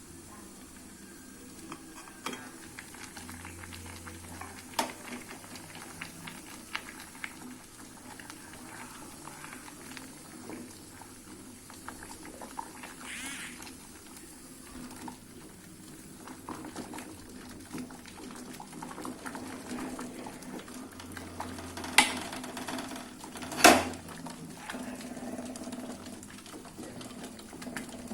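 Pot of waru leaves boiling in water, bubbling with many small scattered crackles. Two sharp knocks come about a second and a half apart near the end.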